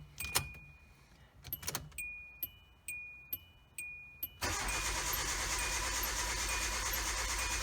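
Clicks and short electronic chime tones from the 2008 Hyundai Accent's dashboard as the ignition key is cycled to prime the fuel system, then about four and a half seconds in the car's 1.6-litre four-cylinder engine starts and runs steadily on its new fuel pump.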